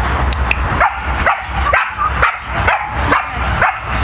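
A dog barking over and over in short, high, yipping barks, about two a second, each rising in pitch.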